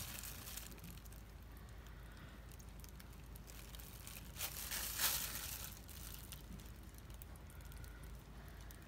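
Faint crinkling and rustling of a clear plastic glove handling a soap loaf mold, with a brief louder rustle about five seconds in.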